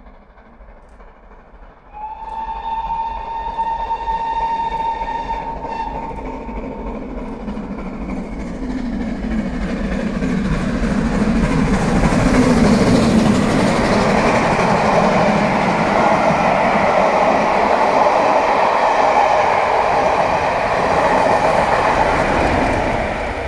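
Four-cylinder GWR Castle-class steam locomotive 7029 Clun Castle sounds its whistle, one long steady note of about five seconds, then passes at speed hauling coaches. The noise of the engine's exhaust and the wheels on the rails builds to a loud peak as the locomotive passes and stays loud while the coaches go by, easing off near the end.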